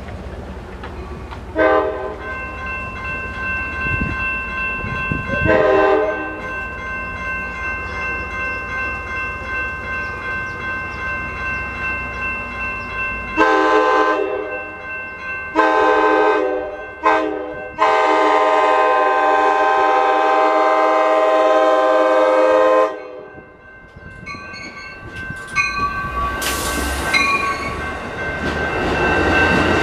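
Train horn sounding two brief toots, then the grade-crossing pattern of long, long, short, long, the last blast held about five seconds. After it, the rumble of a passenger train grows as its bi-level cars pass close by.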